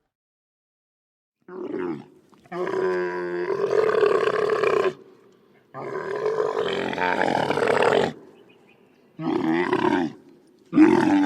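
Cartoon monster roars, voiced by a person as sound effects. A short growl starts about a second and a half in, followed by two long roars of two to three seconds each and then two shorter roars near the end.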